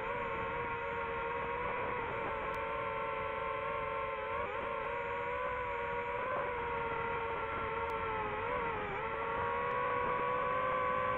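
Quadcopter drone's electric motors and propellers whining steadily, heard close up from the drone's onboard camera; the pitch wavers and dips briefly twice, about four and a half seconds in and again near nine seconds.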